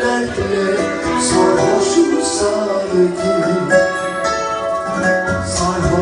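A woman singing into a microphone over loud amplified backing music with a steady beat.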